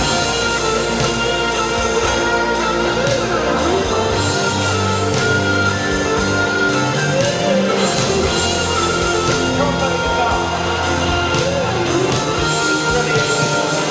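Stratocaster-style electric guitar playing a sustained rock lead, with notes bent up and down over a steady low bass.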